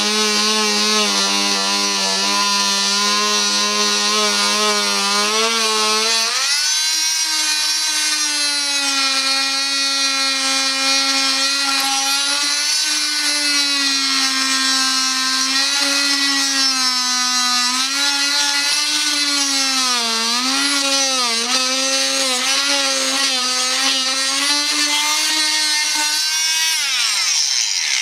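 Oscillating multi-tool with a round saw blade running and cutting through a wooden plank: a steady buzzing whine. About six seconds in it steps up in pitch, then wavers and dips as the blade loads in the wood. Near the end it winds down in pitch as the tool is switched off.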